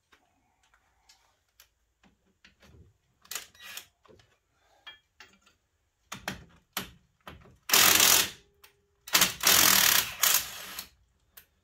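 Cordless impact wrench hammering at bolts on a car's front hub in two loud bursts, a short one and then a longer one, after scattered clicks and knocks of tools on metal.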